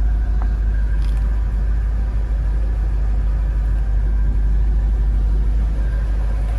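The 1964 Ford Thunderbird's 390 V8 idling steadily, a low even rumble.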